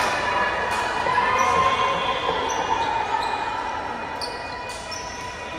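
Basketball bouncing on a gym floor, with several short high squeaks over a steady background hubbub.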